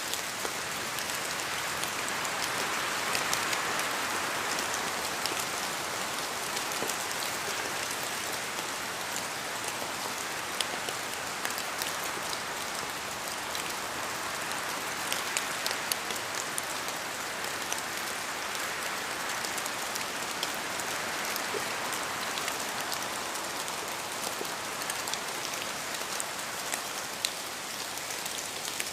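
Steady rain in a forest: an even rush of rainfall with many separate drops falling from the trees, heard as sharp taps through it. The rush swells and eases a few times.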